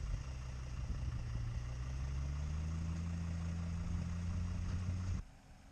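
An off-road 4x4's engine running steadily, its revs rising a little about two seconds in and holding. The sound cuts off suddenly near the end.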